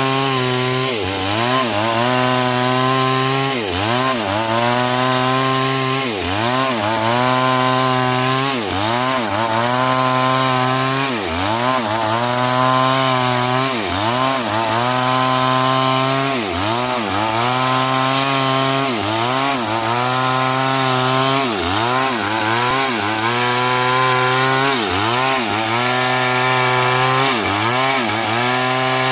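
Two-stroke chainsaw running at high speed while cutting coconut wood, its engine pitch dipping briefly and recovering about once a second as the chain bites into the hard wood.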